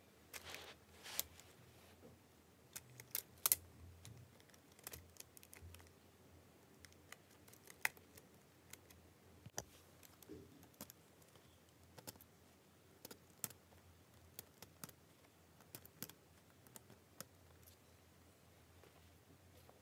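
Lego Technic plastic parts being handled and fitted together: scattered small clicks and taps at irregular intervals, the loudest a few seconds in.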